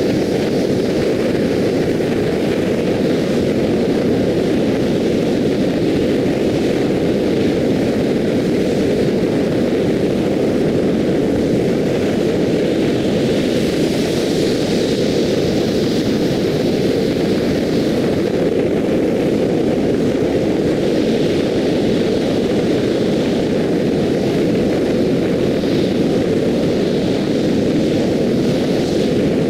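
Steady wind rush and tyre road noise from a car driving on an expressway, loud and unbroken.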